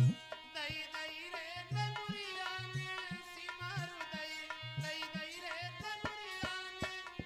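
Male voice singing a Hindi devotional bhajan over tabla, the low drum strokes gliding in pitch, with sustained keyboard tones underneath.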